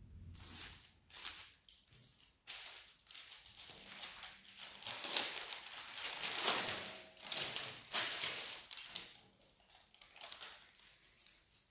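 Sterile surgical gloves being unwrapped and put on: an irregular run of paper crinkling and glove rustling, loudest in the middle and tailing off near the end.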